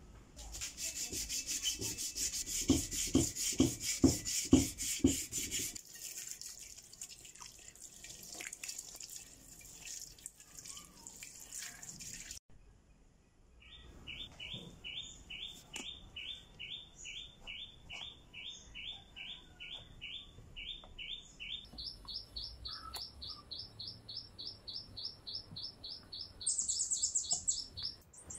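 An aluminium alloy wheel hand-sanded with 600-grit sandpaper: quick rubbing strokes for about twelve seconds. After a short pause, a bird chirps in a steady series of short notes, about three a second, stepping up in pitch twice near the end.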